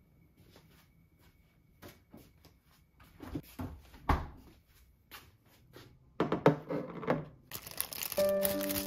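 Kitchen handling sounds: a few scattered knocks and clinks of dishes on a stainless steel counter, and a short louder rustle about six seconds in. Background music comes in near the end.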